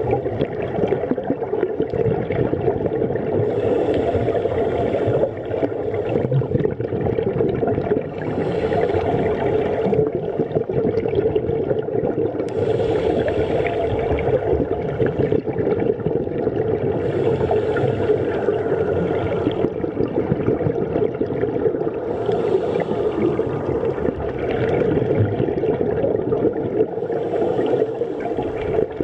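Underwater scuba breathing: a steady muffled rush with a burst of bubbling exhalation through a diver's regulator about every four to five seconds.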